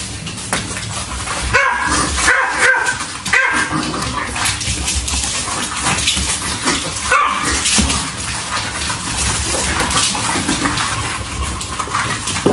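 Small fluffy dog giving short, high-pitched yips and whines in bursts, a cluster about two to three seconds in and more around six to seven seconds.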